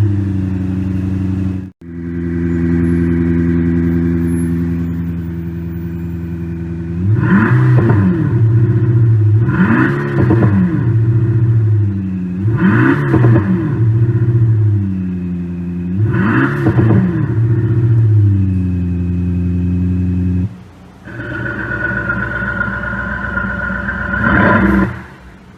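Electronic engine-sound simulator playing a synthetic sports-car engine note through its speaker: a steady idle broken by four quick revs that rise and fall a few seconds apart. Near the end it cuts to a different, higher-toned engine sound with one more rev.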